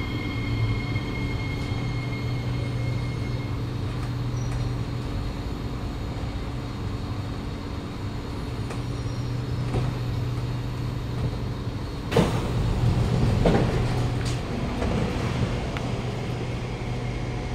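Kawasaki Nippon Sharyo C751B metro train standing at the platform with a steady low hum, and a faint high whine that dies away in the first few seconds. About twelve seconds in, the doors open with a sudden clunk, followed by a couple of seconds of louder door and platform noise.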